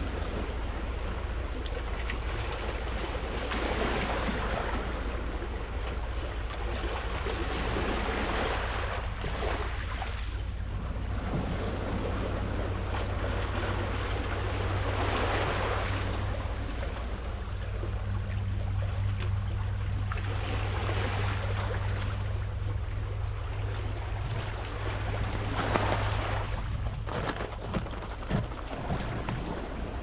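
Small sea waves washing onto a pebble shore, the wash swelling and falling back every few seconds, with wind on the microphone and a steady low hum underneath.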